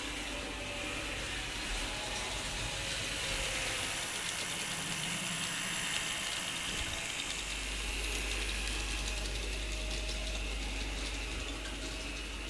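Mehanotehnika HO T360 model electric tram running steadily around its track: the small motor and gears whir, with the noise of the wheels on the rails.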